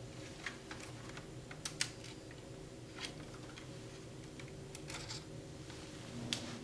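A handful of sharp, scattered plastic clicks and taps from RAM slot retention levers being pushed and memory sticks being pulled and handled, over a steady low hum.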